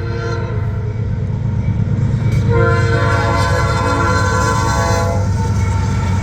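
A freight locomotive's five-chime Nathan P5 air horn, on NS GE AC44C6M 4122, sounds a chord: a brief faint note at the start, then a long loud blast from about two and a half seconds in to about five seconds. Under it runs the steady rumble of the passing train.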